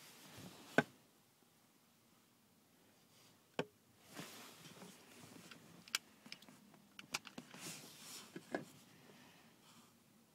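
Small plastic electronic toll badge being handled in the fingers: scattered sharp clicks and a few short soft rustles.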